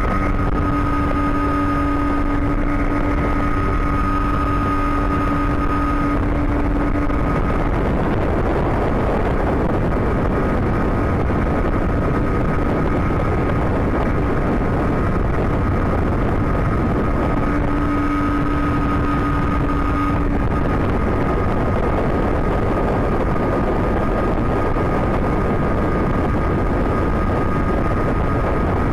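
Yamaha 40 hp outboard motor running flat out on a speedboat at speed, with water and wind rushing past the hull. A steady whine rides over the engine for the first several seconds and again briefly about two-thirds through.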